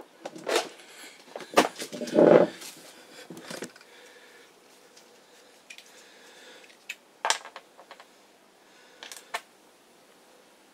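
Hard plastic toy robot parts being handled and snapped together: a cluster of sharp clicks and rubbing in the first few seconds with a louder handling noise about two seconds in, then a few single clicks later on.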